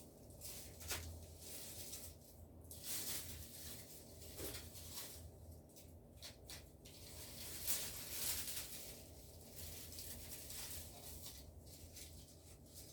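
Dry leaves being handled and sorted, rustling and crackling in irregular bursts with a few sharp clicks.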